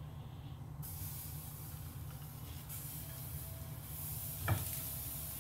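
Steady hiss and low rumble of a lit gas burner under a dry, hot skillet as whole tomatoes are set in to char. The hiss comes in under a second in, and a tomato lands in the pan with a brief knock about four and a half seconds in.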